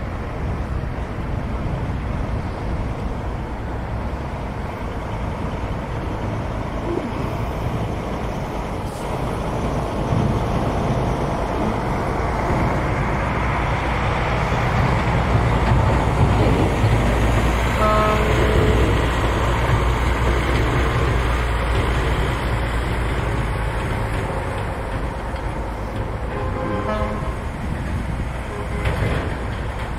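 Diesel dump truck engine running under load, a steady low rumble that swells in the middle, with short horn toots about two-thirds of the way in and again near the end.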